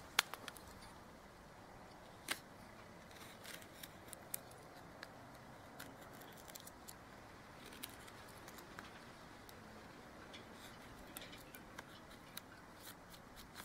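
Knife blade cutting and shaving wood at the notch of a hand-drill fireboard, opening up the back of the notch for airflow. It comes through as faint, irregular small clicks and scrapes.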